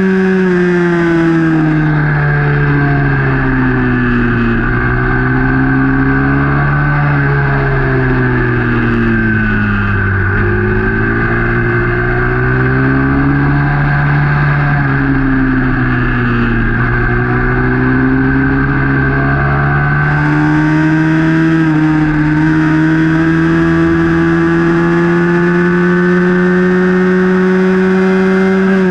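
Small racing motorcycle's engine, heard onboard, running hard in a race: the revs drop and pick up again several times through the corners, then hold high and steady down the straight near the end.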